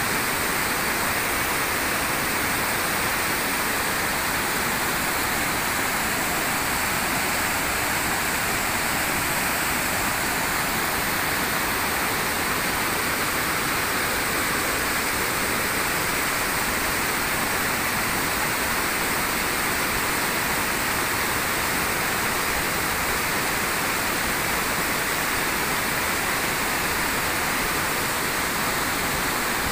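A waterfall's water rushing steadily: an even, unbroken noise with no changes.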